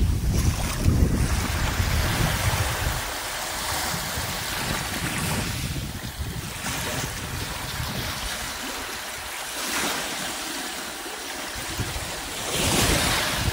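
Small, gentle waves lapping and washing up onto a sandy beach, a soft hiss of water and foam rising and falling with each wash. Wind rumbles on the microphone in the first few seconds and again near the end.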